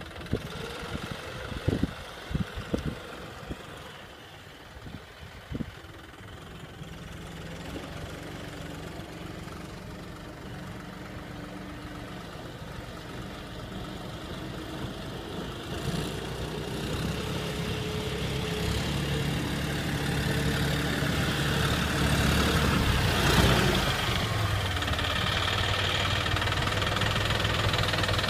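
Farm tractor's diesel engine running steadily, growing louder as the tractor drives closer through shallow floodwater. A few sharp knocks in the first six seconds.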